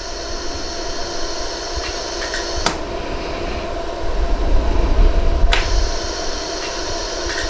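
Steady hum and hiss of a LaserStar iWeld 100-joule jewelry laser welder, broken by several sharp clicks a second or more apart: single laser pulses welding white gold wire onto a ring's prongs.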